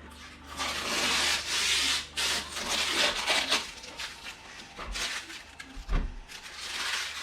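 Rubbing and scraping strokes on a surface in bursts of one to two seconds, with a couple of low thumps near the end.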